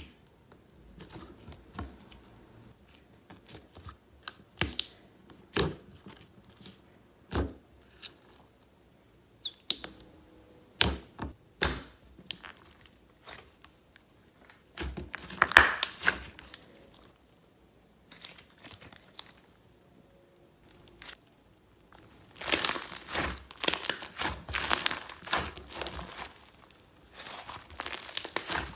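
Slime being handled, giving crackling, crinkling sounds: separate sharp snaps at first, then a dense stretch of crackling about halfway through and a longer one near the end.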